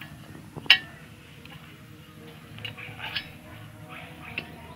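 A few sharp clicks and clinks of hand tools at work on a motorcycle exhaust, the loudest about a second in, over a faint low hum.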